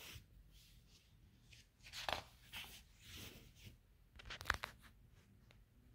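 A page of a large paper picture book being turned: a few soft paper rustles and crinkles, loudest about two seconds in and again about four and a half seconds in.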